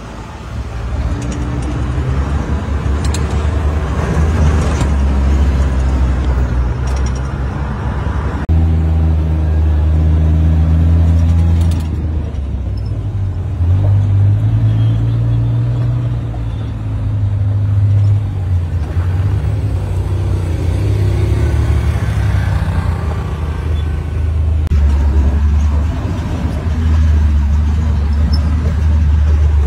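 Side-by-side utility vehicle's engine running under way, a loud low drone that steps up and down in pitch several times as it speeds up and eases off.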